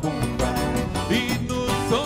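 Live forró music with a steady dance beat: accordion, zabumba drum and triangle playing an instrumental passage.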